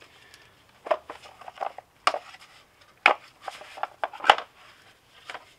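Irregular clicks and clatter of metal sockets and a plastic socket organizer being handled, with a sharper knock about four seconds in.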